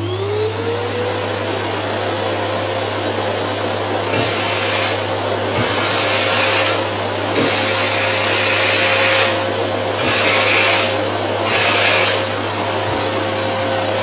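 Vacuum cleaner running: its motor whine climbs in pitch as it spins up at the start, then holds steady over a loud rushing hiss. The hiss swells and eases several times, with a few light knocks.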